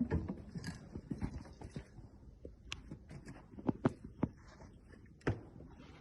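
Irregular knocks and clicks, a few of them louder, with no machine running.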